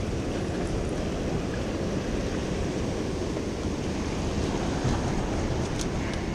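Ocean surf breaking and washing against the rocks of a jetty, a steady rushing, with wind rumbling on the microphone.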